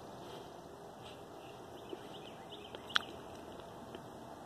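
Quiet open-air ambience with faint bird chirps and one sharp knock about three seconds in.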